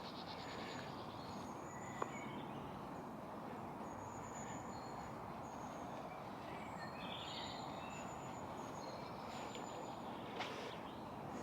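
Faint outdoor ambience: a steady background rush with small birds chirping, thin high notes repeating throughout and a short burst of chirps about seven seconds in.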